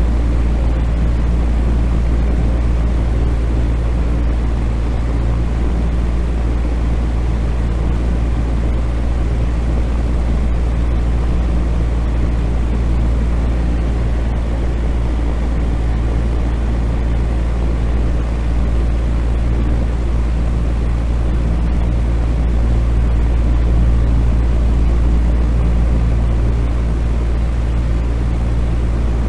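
Fan running steadily: a low, even hum with a few constant tones under a smooth hiss, with no change or pause.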